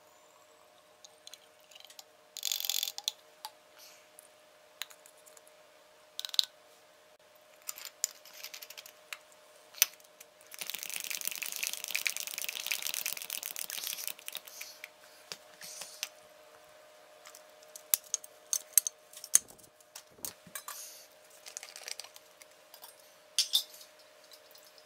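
Denatured alcohol poured from a plastic cup into a fuel bottle: a steady pouring trickle lasting about three seconds midway. Around it come sharp clicks and knocks of plastic bottles, caps and a metal pot being handled.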